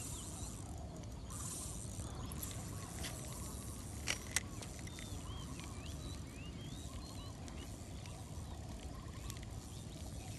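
Outdoor ambience over a lake: a low steady rumble with faint scattered bird chirps, and two sharp clicks close together about four seconds in.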